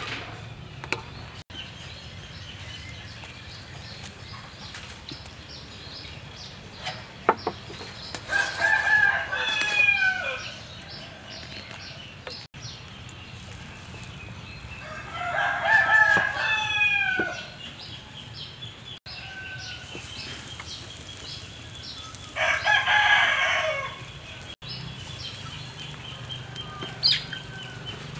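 A rooster crowing three times, each crow lasting about two seconds and falling in pitch at its end.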